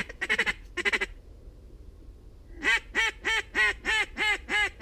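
Hand-blown goose call imitating geese: a few short honks at the start, then after a pause of about a second and a half a fast run of clucking notes, about three a second, each rising and falling in pitch.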